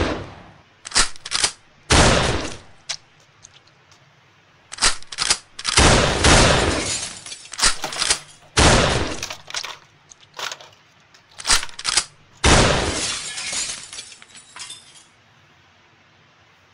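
Toy-gun shooting sound effects: about a dozen blasts, some sharp short cracks and some longer bursts fading out over about a second, with gaps between them. They stop about fifteen seconds in.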